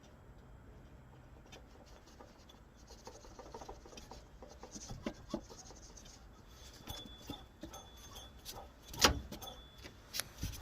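Opel Astra H 1.6 petrol engine's water pump area making irregular clicking and rubbing with a thin high squeak that comes and goes, the noise of a failing water pump bearing. A sharper knock about nine seconds in.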